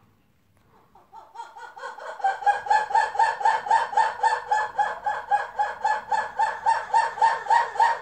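Black-and-white ruffed lemurs giving their loud roar-shriek call: a rapid, pulsed calling that starts about a second in, builds quickly to about four loud pulses a second, and stops abruptly at the end.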